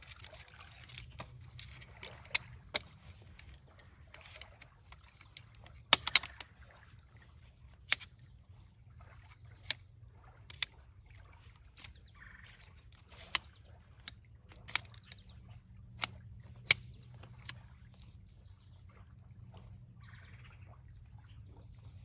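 Frame poles of a Marchway ultralight folding camping chair clicking into their joints as the chair is assembled: about a dozen sharp, irregular clicks, with soft rustling of the chair's bag between them.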